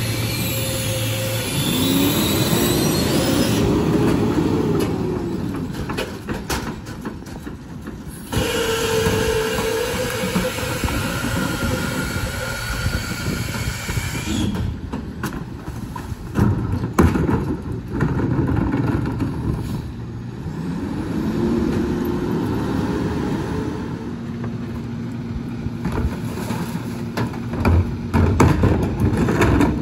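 Peterbilt rear-loader garbage truck at work: the diesel engine rises and falls in pitch several times as the New Way King Cobra packer runs its hydraulic cycle, with metal squeals and the knocks of wheeled carts being tipped into the hopper.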